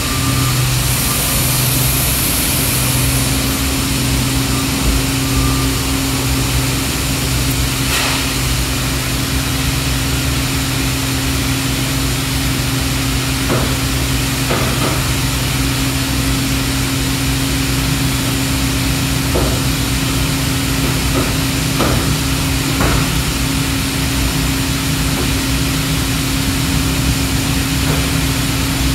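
Large Husky hydraulic plastic injection molding machine running: a steady machine hum holding a couple of constant tones. A short hiss comes about a second in, and a few scattered clicks and knocks fall between about 8 and 23 seconds in.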